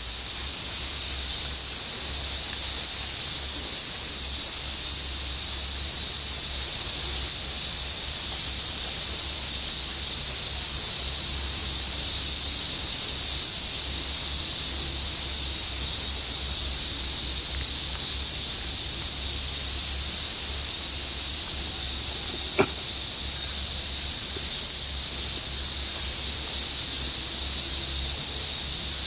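Steady high-pitched hissing drone of a summer cicada chorus in the park trees, with a low rumble underneath. A single sharp click about three-quarters of the way through.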